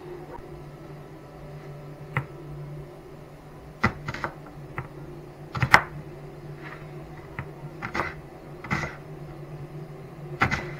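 Kitchen knife cutting an onion on a wooden cutting board: about a dozen irregular knocks of the blade hitting the board.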